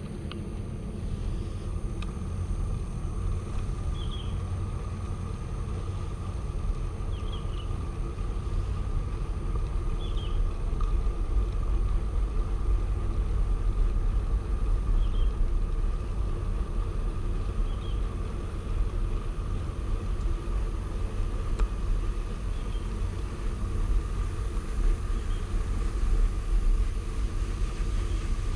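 Steady low rumble of wind on the microphone and tyre noise from a bicycle being ridden along a paved path, with faint short high chirps every few seconds.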